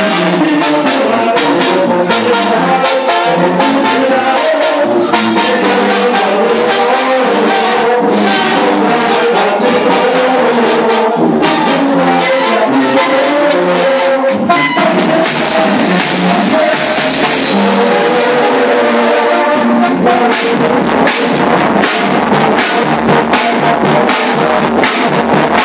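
Mexican banda, a brass band with drums, playing a medley of corridos live and loud.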